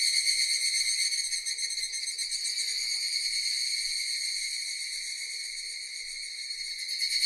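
Cicadas buzzing in a steady, high-pitched chorus. It fades slowly, then swells back up sharply near the end.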